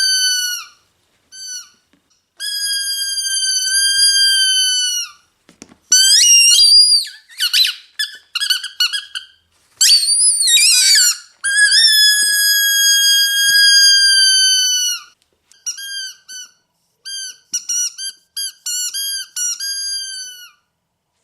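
Squeaky dog toy being squeezed. First come long squeaks of two to three seconds each at a steady pitch that drops as each one ends. In the middle there is a stretch of wavering, warbling squeaks, then another long squeak. Near the end comes a run of short, quick squeaks, about two a second.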